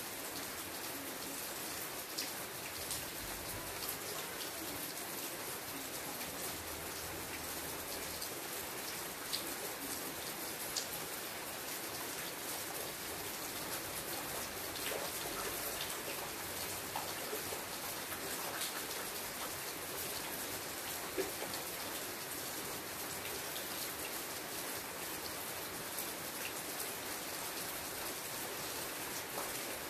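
Steady rain falling on leafy foliage: an even hiss with scattered individual drops ticking.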